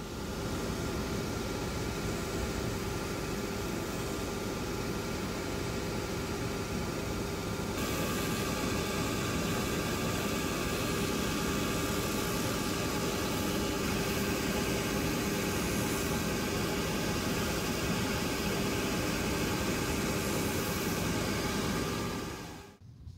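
Shoe finishing machine's spinning heel-trimming cutter wheel running steadily while the edge of a shoe heel is trimmed against it. The sound grows louder and hissier about eight seconds in, and the machine cuts off suddenly near the end.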